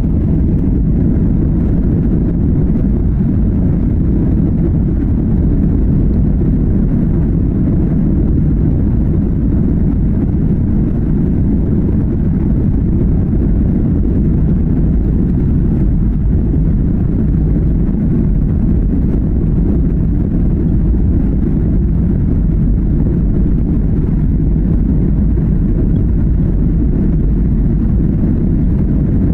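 Boeing 737-800's CFM56 turbofan engines at takeoff power, a steady low rumble that holds level without rising or falling.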